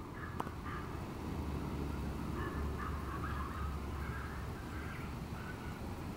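Outdoor ambience: a steady low rumble, like wind on the microphone, with faint, irregular bird calls. A single sharp click about half a second in.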